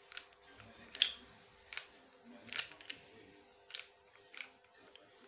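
Plastic 3x3 puzzle cube being turned by hand: irregular sharp clicks as the layers snap round, about one every half second to a second.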